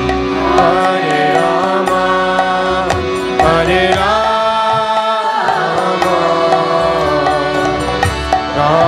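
Devotional kirtan chanting: a voice sings a melodic line over a steady held drone, with frequent hand-drum strokes.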